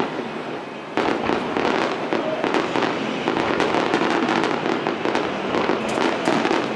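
Aerial fireworks going off in a dense, continuous barrage of bangs and crackling, growing sharply louder about a second in.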